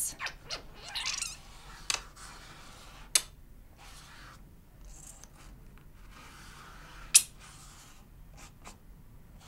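Small handling noises of drawing with a squeeze bottle of paint: faint rustling with a few sharp clicks, the loudest about seven seconds in.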